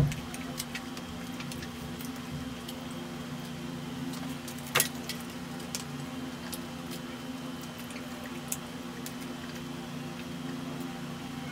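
Scattered wet mouth clicks and smacks of fried chicken being eaten and fingers licked, one sharper click about five seconds in, over a steady low hum.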